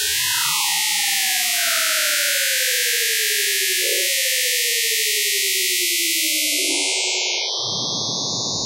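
Synthesized sci-fi 'warp speed' sound effect: a steady bright hiss under electronic tones that glide slowly downward, stepping back up twice along the way. A dense buzzing layer comes in near the end.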